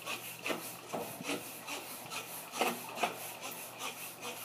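Lil Chizler hand scraper scraping caked grease and grime off a grill sprayed with degreaser: a run of uneven rasping strokes.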